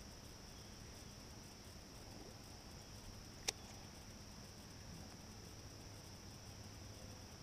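Faint, steady high-pitched insect chirring from summer insects, with one sharp click about three and a half seconds in.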